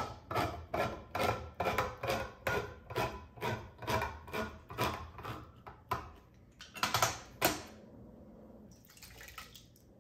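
Manual hand-crank can opener cutting around the lid of a steel food can, clicking evenly about two to three times a second as it is turned. A couple of louder clicks come about seven seconds in.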